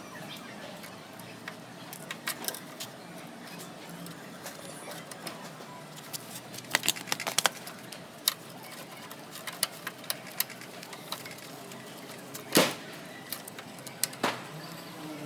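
Scattered metallic clinks and clicks of tools and motorcycle parts being handled during rear wheel and drum brake reassembly, with a quick run of clinks about halfway through and a single louder knock near the end.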